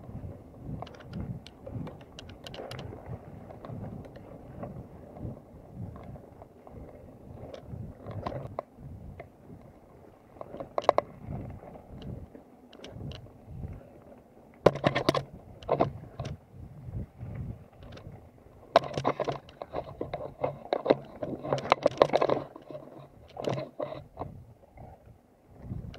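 Mountain bike ridden over a singletrack covered in dry fallen leaves: a steady rumble of the tyres and wind on the microphone, with irregular rattles and clicks from the bike. Louder bursts of rapid rattling come about halfway through and again later on.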